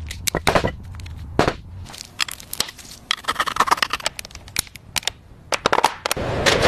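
Irregular clicks and knocks of metal workshop clatter over a low hum, with a denser crackling noise starting near the end.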